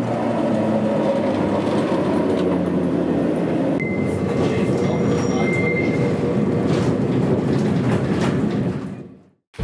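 Vintage Kirnitzschtal tramway tram running on its rails: a loud, steady rumble of wheels and motor. A thin high squeal comes in briefly twice around the middle, and the sound fades out just before the end.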